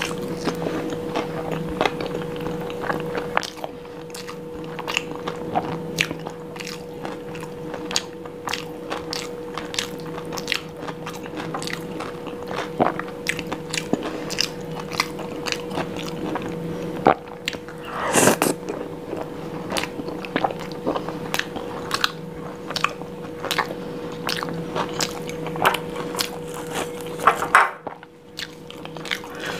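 Close-miked eating with the mouth: crunchy bites, first of a raw cucumber slice, then steady chewing of soft curry, rice and flatbread, full of small wet clicks and smacks. A thin steady hum runs underneath.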